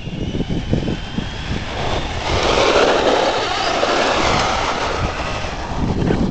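Electric RC short-course truck driving hard on wet asphalt: motor whine and tyre rush, loudest about two to four seconds in. Heavy rumbling buffeting from wind and rattle on the microphone runs underneath.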